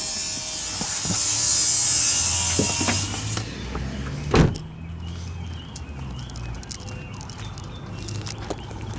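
A steady high hiss that cuts off after about three seconds, then a single loud knock about four and a half seconds in, over a low hum.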